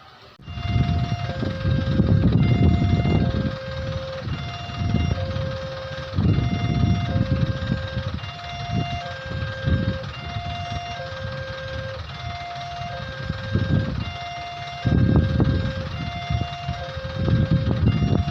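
Railway level-crossing warning siren sounding a two-tone hi-lo alarm, a higher and a lower tone taking turns about every half second without a break, the signal that a train is approaching and the crossing is closing. Under it a low rumbling noise swells in and out several times.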